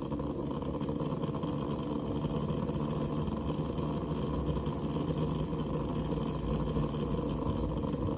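Barrow pump and CPU waterblock combo for a water-cooled PC running with a steady rattling buzz. The owner notes that the pump sounds fine above 50% speed.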